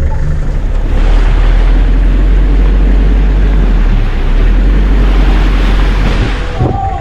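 Vehicle on the move, a loud low rumble with wind buffeting the microphone; the rumble grows heavier about a second in and eases near the end.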